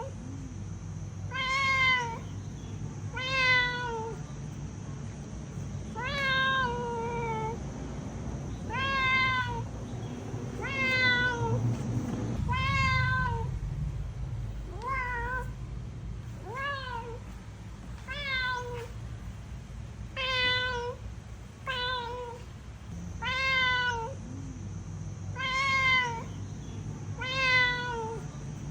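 A cat meowing over and over, about every two seconds, each meow rising and then falling in pitch.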